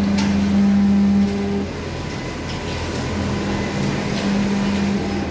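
Programmable pattern sewing machine's X-Y feed motors whining in a steady tone as the work clamp is jogged by the direction keys: once for the first second and a half or so, then again from about three seconds to five, over a steady electrical hum.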